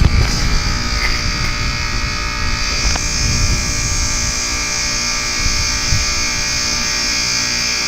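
Goodman heat pump outdoor unit in its defrost cycle, humming steadily with a buzz, while a hiss grows louder about two and a half seconds in. This is the unit melting the ice off its frozen coil and fan, which is normal for a heat pump.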